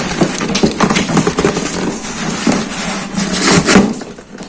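Subwoofer being worked out of a tight-fitting cardboard box packed with styrofoam: continuous scraping and rubbing with several knocks, the loudest a little past three and a half seconds in.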